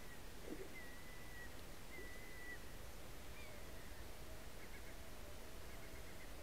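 Steady rush of river water, with a few short, thin whistled bird calls and a lower drawn-out call through the second half.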